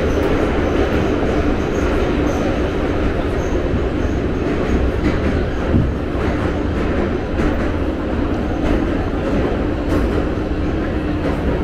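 Metro train running at speed, a steady rumble and roar of wheels on rails and running gear.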